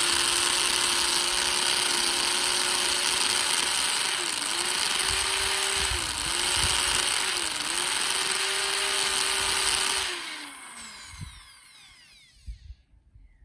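Electric drill running steadily while boring into a log, its pitch sagging briefly three times as the bit bites under load. About ten seconds in the trigger is released and the motor winds down, followed by a few light knocks.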